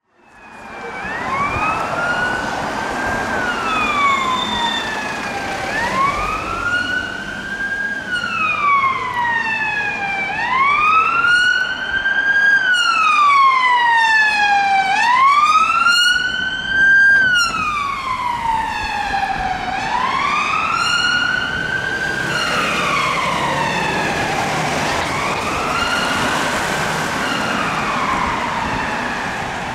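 Police car siren on a slow wail, its pitch climbing and falling about once every four to five seconds.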